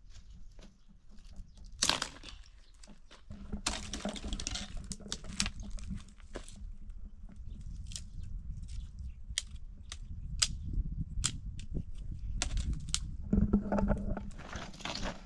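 Crunching and crackling of dry twigs and brush being handled, with a sharp knock about two seconds in and scattered snapping clicks.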